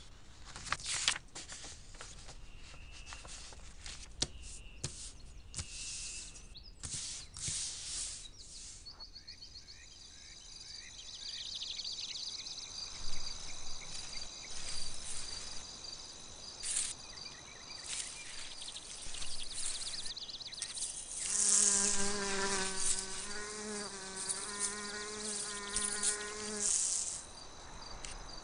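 A bee buzzing close by for about five seconds later on, a steady low hum that wavers slightly. Before it come a high, thin insect trill and scattered light ticks.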